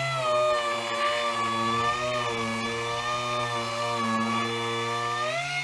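Air-powered random orbital sander running against a pickup truck door, sanding down body filler: a steady whine whose pitch wavers slightly and rises briefly near the end.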